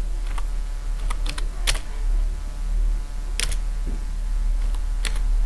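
Computer keyboard typing: scattered, uneven keystrokes as a short name is typed in, two of them louder. A steady low electrical hum runs underneath.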